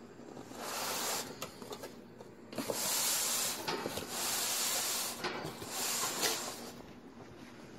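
Four separate bursts of rubbing, scraping noise, each about a second long, with short quiet gaps between them.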